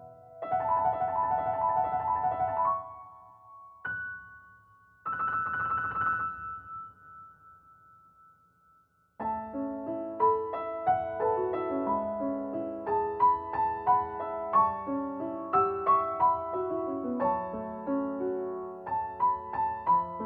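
Background piano music: two shimmering, rapidly repeated passages that fade away to a brief near-silence, then from about nine seconds in a gentle melody of separate notes over chords.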